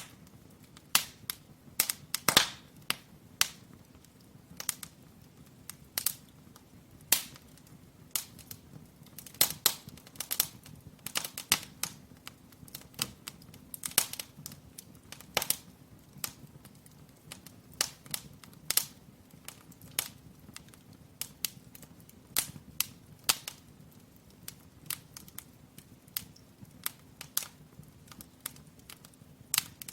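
Wood fire crackling in a fireplace: irregular sharp snaps and pops from the burning logs, sometimes several in quick succession, over a faint steady low hum.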